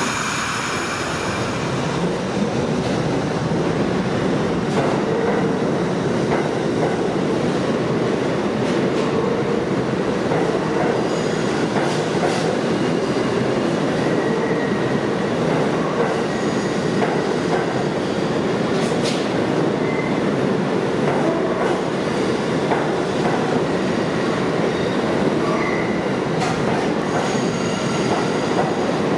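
R68 subway train pulling out of the station: a brief hiss at the very start, then a low whine rising as it accelerates. After that comes the steady rumble of the cars rolling past, with wheels clattering over the rail and brief squeals.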